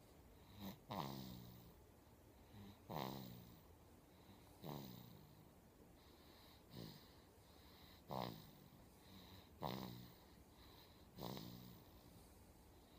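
A baby snoring softly: a short snore with a falling pitch on each breath, repeating about every one and a half to two seconds.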